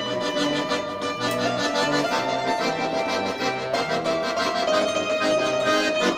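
Instrumental music: sustained chords over a bass line that steps from note to note.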